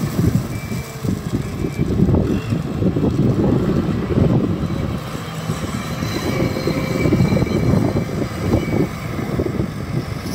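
Tata Hitachi TL340 wheel loader's diesel engine working under load as the machine drives up with a full bucket of gravel and lifts it high. The sound is a rough, uneven low rumble that rises and falls.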